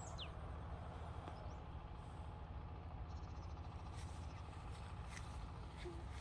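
Faint outdoor background: a steady low rumble with a light hiss over it, and one brief high falling chirp just after the start.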